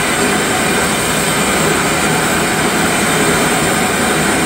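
A glassworking bench torch's flame burning with a steady, even rushing noise.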